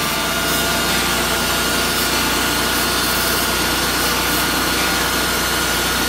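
Wood-Mizer LT35 portable band sawmill running under load, its blade cutting through a reclaimed American chestnut log over the steady run of its gasoline engine, with a thin steady high whine.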